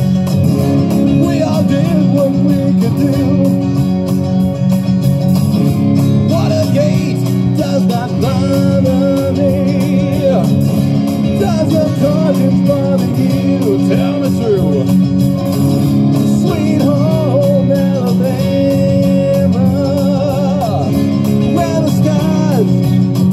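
A man singing through a headset microphone, accompanying himself on an amplified Stratocaster-style electric guitar.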